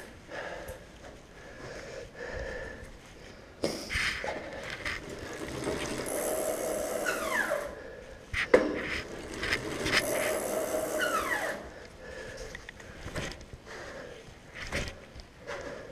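Bicycle being wheeled and manoeuvred, with clicks and knocks from the frame and wheels, and two longer scraping stretches, each ending in a falling squeal; a sharp knock comes about halfway through.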